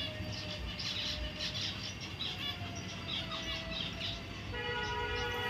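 Zebra finches chirping, a rapid run of short calls. About four and a half seconds in, a steady held tone joins them.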